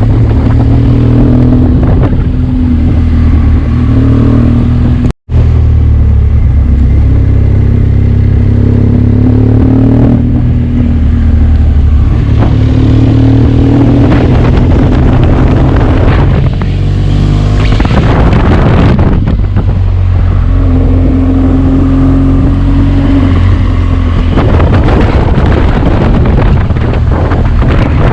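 BMW R1200GS boxer-twin engine on its stock exhaust, running under way; the note rises and falls with throttle and gear changes, with wind rush over the microphone at times. The sound cuts out for an instant about five seconds in.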